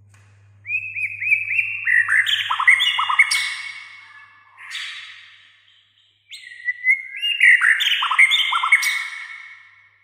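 White-rumped shama (murai batu) singing: two rapid bursts of varied whistles and sharp chattering notes, each about three to four seconds long, the second starting about six seconds in.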